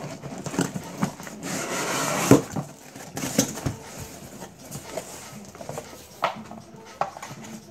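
Cardboard box and paper contents handled by hand: rustling with a run of sharp knocks and clicks, the loudest about two seconds in.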